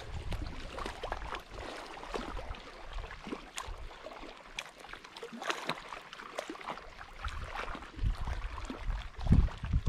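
Lake water lapping and trickling close to the microphone, with many small irregular splashes and clicks. A low wind rumble on the microphone builds near the end.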